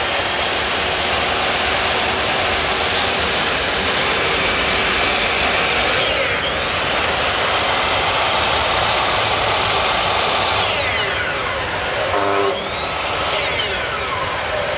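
Electric aluminium-cutting saw running free with no load, a loud steady motor and blade whir. Its speed dips and picks up again about six seconds in and again near twelve seconds, as the trigger is eased and squeezed.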